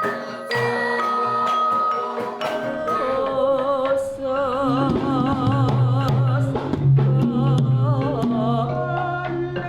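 Javanese gamelan music: metallophones struck in a slow pattern of ringing notes, joined about three seconds in by a singing voice with a wide vibrato over low sustained tones.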